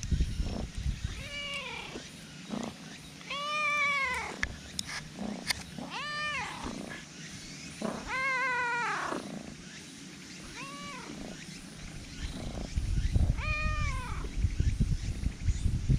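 Black cat meowing six times, a couple of seconds apart, each meow a drawn-out call that rises then falls in pitch. A low rumbling noise sits under the first couple of seconds and the last few.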